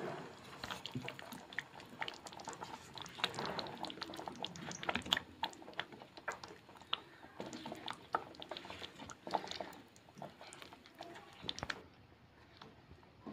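Spatula stirring a thick creamy gravy with paneer cubes in a nonstick pan, making wet squelching and irregular clicks against the pan. The sound thins out near the end.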